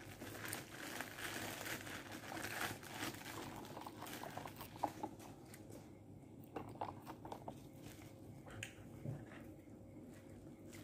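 Crinkling of a plastic bag and paper food wrapping as food is handled, busiest in the first few seconds. After that come scattered soft clicks of biting and chewing a fried fritter.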